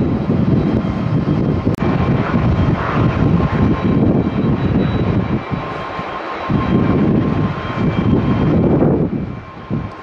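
Jet airliner engines running loud on the runway: a deep, uneven rumble with a thin steady whine over it, mixed with wind buffeting the microphone. The rumble eases briefly a little past halfway and falls off near the end.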